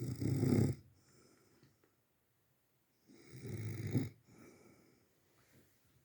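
A man snoring in his sleep: two loud snores about three seconds apart, each followed by a fainter breath.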